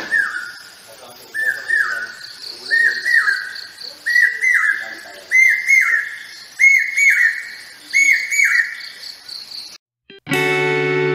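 Common hawk-cuckoo (papiha) calling: a run of about seven shrill phrases of a few quick whistled notes, each phrase a little higher in pitch than the one before. The calls stop near the end and plucked guitar music comes in.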